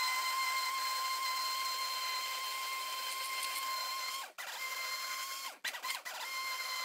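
Stick blender running in a stainless steel pot of liquid soap batter that is thickening toward trace: a steady motor whine. It is switched off and straight back on twice after the middle, the whine sagging each time it stops.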